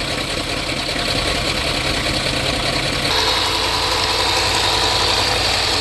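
The supercharged V8 of a 2012 Range Rover idling steadily, freshly filled with new oil and left running to check for leaks. About three seconds in the tone shifts and a faint high whine comes in.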